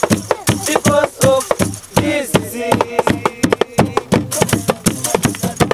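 Voices singing over a steady beat of homemade percussion: hands and sticks striking plastic jerrycans and a wooden box.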